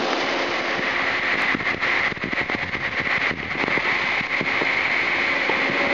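Steady machine-shop background noise: an even hiss of running equipment with a steady high whine and a few faint knocks in the middle.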